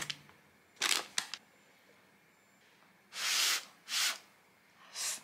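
Eating yakisoba: a brief paper-bag rustle about a second in, then three short slurps of noodles from a bowl held to the mouth.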